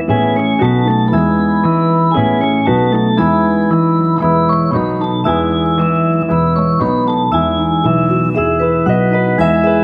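Instrumental background music on an organ-like keyboard, its notes and chords changing in a steady rhythm, two or three a second.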